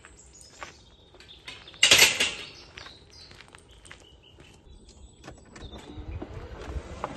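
Metal gate swinging shut with a loud clang about two seconds in, among lighter scattered clicks and scuffs.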